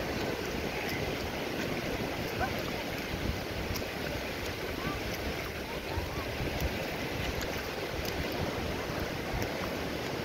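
Sea surf breaking and washing up a sandy beach: a steady rushing noise.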